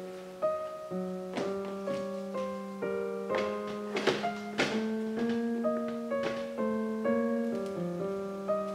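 Gentle solo piano music plays steadily. A few sharp light knocks and clicks sound through the middle, from plastic and steel kitchen bowls being handled.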